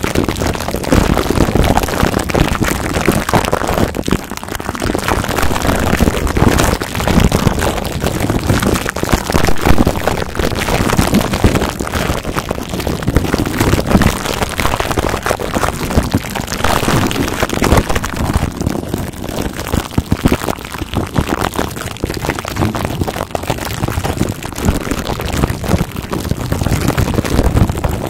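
Plastic wrap on a microphone crinkling and crackling close-up as fingertips rub and squeeze it over the mic head: a loud, continuous, dense crackle.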